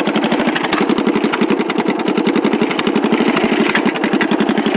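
Riding lawn mower's engine running steadily through its custom exhaust: a loud, even putter of about a dozen firing pulses a second.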